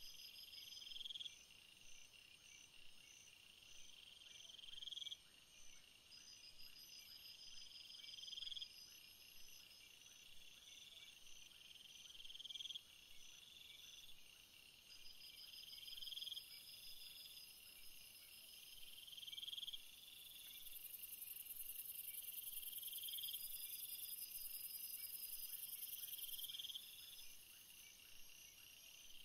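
Faint night-time insect chorus of crickets trilling. One high call rises at its end and repeats about every three and a half seconds, over faster pulsing trills. A louder, very high, steady buzz comes in about halfway through and stops shortly before the end.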